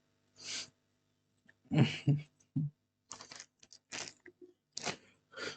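Scattered soft clicks and taps from a mechanical keyboard and its switches being handled or pressed, mostly in the second half, with a short breath-like hiss near the start.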